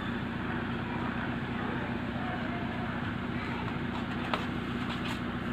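Small 5 V DC motor taken from a CD drive, running steadily and belt-driving a metal pulley and a small generator, giving a constant whirring hum. A couple of short clicks come near the end as the wiring is handled.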